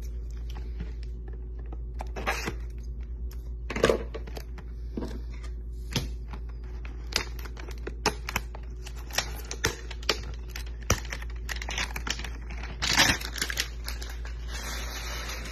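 A cardboard trading-card hanger box being handled and turned over in the hands: irregular light clicks, taps and rustles of cardboard, with a few louder scrapes, over a steady low hum.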